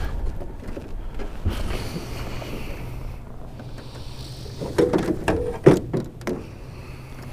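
A few sharp knocks and clunks about five seconds in, over a low rumble and a steady low hum.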